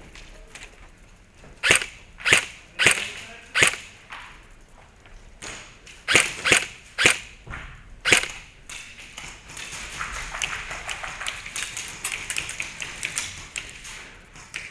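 Airsoft guns firing single shots as sharp cracks: four about half a second apart, a pause, then four more. Near the end comes a faster, fainter run of clicks.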